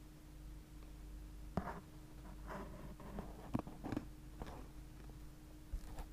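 Quiet room tone with a low steady hum, broken by a few faint, short clicks and rustles in the middle.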